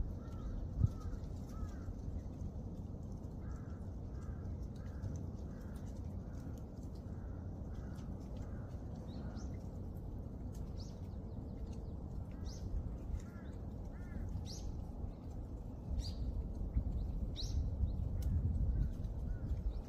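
Wild birds calling: a string of short, evenly repeated notes in the first half, then sharp, high downward chips in the second half, over a low, steady rumble.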